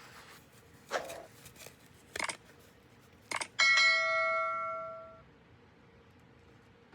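Three light clicks of handling, then a single ring of a small bell that dies away over about a second and a half.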